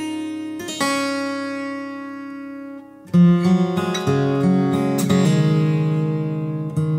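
Yamaha acoustic guitar in DADGAD tuning played fingerstyle with a thumbpick. Early on a chord rings out and fades for about two seconds; after a brief dip, the playing comes back louder, with low bass notes under picked melody notes.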